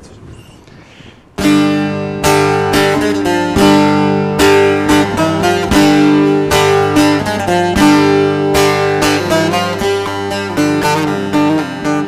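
Bağlama (long-necked Turkish saz) played solo, a quick plucked melody over a steady low drone. It starts suddenly about a second and a half in.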